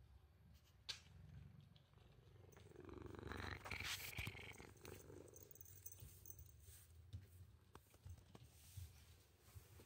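Domestic cat purring steadily, louder for a couple of seconds near the middle as it comes close. A single short click about a second in.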